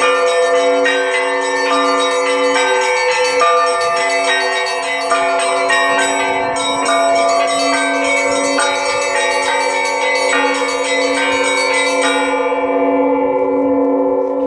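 Russian festive bell peal (zvon) on a set of ten bells from 250 kg down to 4 kg: the small bells are struck in quick rhythm over the steady hum of the large bells. About 12 seconds in the small bells stop, and the larger bells ring on.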